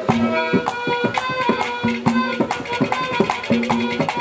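Instrumental Haryanvi ragni folk music: a harmonium holds steady notes under a quick rhythm of hand-struck drum strokes. The drumming is at about two to three beats a second.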